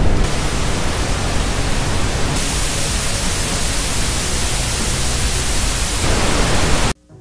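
Loud analogue TV static, a steady hiss. It grows brighter about two seconds in and cuts off suddenly near the end.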